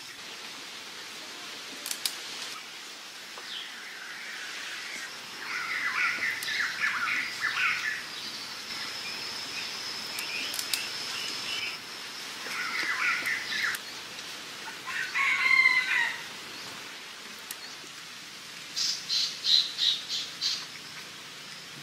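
Forest birds calling: several rough, scratchy calls, a long high steady note in the middle, the loudest call about two-thirds of the way through, and near the end a quick run of high chirps.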